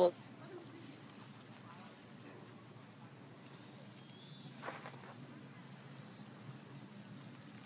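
A cricket chirping faintly and steadily, about three high chirps a second.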